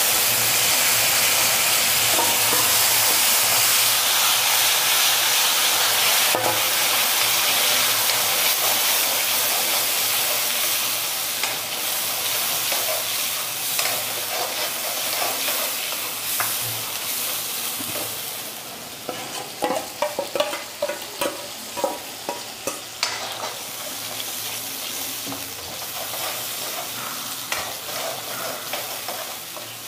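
Onion-tomato gravy sizzling as it hits hot spiced oil in a kadai. The hiss is strongest at first and dies down over the first twenty seconds or so. A spoon stirs and scrapes against the pan, the scrapes coming more often in the second half.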